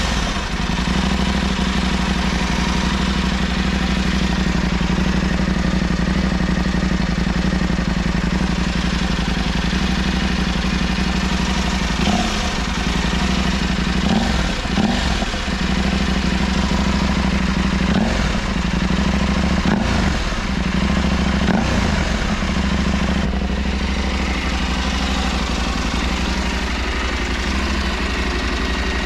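Husqvarna Norden 901 Expedition's 889 cc parallel-twin engine idling through its stock muffler with the catalytic converter removed (decat). It idles steadily, with several short throttle blips in the middle.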